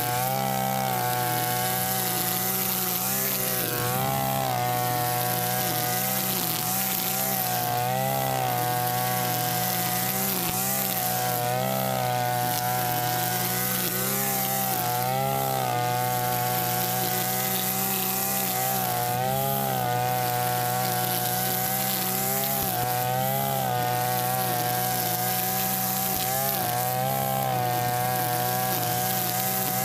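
Backpack Mitsubishi two-stroke brush cutter with a nylon string head running at high revs. Its pitch dips briefly and recovers every three to four seconds as the line sweeps through the grass.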